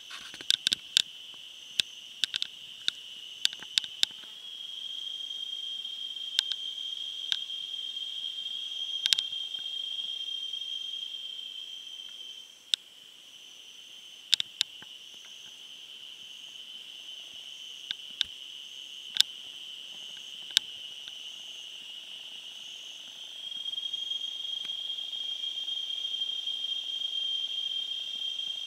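Forest insects calling in a steady, high-pitched chorus, with a second insect pulsing higher up and scattered sharp clicks. The chorus steps louder about four seconds in, drops off around thirteen seconds, and swells again near the end.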